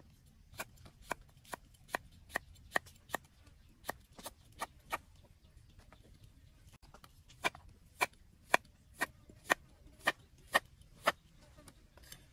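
Large knife chopping through cucumber and carrot onto a round wooden chopping block: sharp knocks about two a second, a run of about eleven, a pause of a couple of seconds, then a run of about eight.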